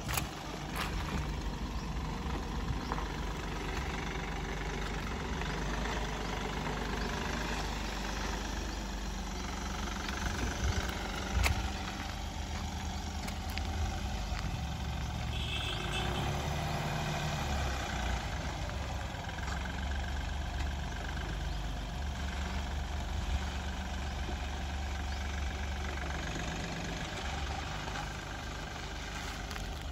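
Mahindra Bolero Neo's three-cylinder diesel engine running steadily at low revs as the SUV crawls over rough dirt, with a few short sharp knocks.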